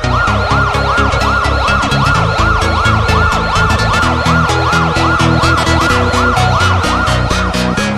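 Electronic dance music with a steady beat, overlaid with a siren-like wail that rises and falls about two or three times a second.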